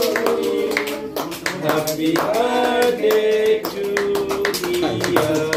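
Several people clapping in a steady rhythm along with a sung melody of long held notes, as at a birthday cake cutting.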